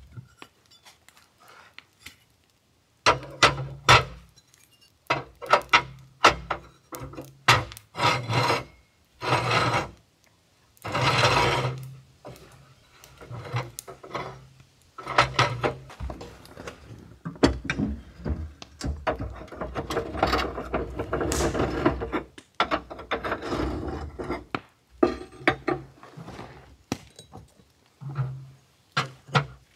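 Rusty parts of an old sheet-metal and cast-iron parlour wood stove being worked loose and handled: irregular scraping, rubbing and knocking of rusted metal, with a longer continuous scrape about twenty seconds in.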